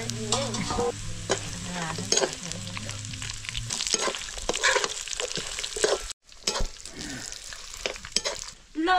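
Food sizzling as it is stir-fried in a metal pan, with a spatula scraping and knocking against the pan again and again. The sound cuts out briefly about two-thirds of the way through.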